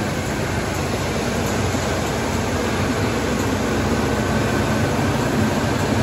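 1973 Chevrolet K5 Blazer engine idling steadily and quietly, with no ticking: the freshly refitted exhaust manifold is sealing without a leak.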